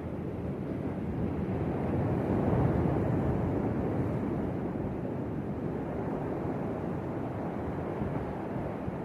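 Sea waves breaking and washing ashore, one surge swelling to its loudest about two and a half seconds in and then slowly dying back.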